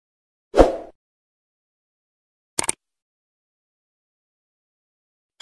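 Sound effects of an animated subscribe button: a short pop about half a second in, then a quick double mouse click about two and a half seconds in.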